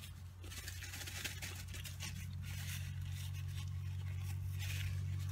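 Paper napkin rustling and rubbing in short scratchy bursts, over a steady low hum.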